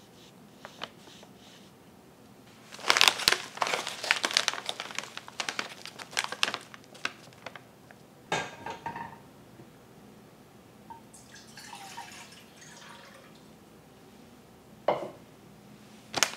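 A paper stand-up pouch of dashi stock packs crinkling as it is handled and turned over, a dense run of crinkles lasting about five seconds, followed by a few scattered clicks and light knocks.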